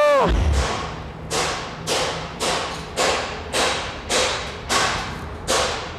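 Steady hammering, about two blows a second, each strike ringing on with echo in a large hard-walled room. A short squeal that rises and falls comes right at the start.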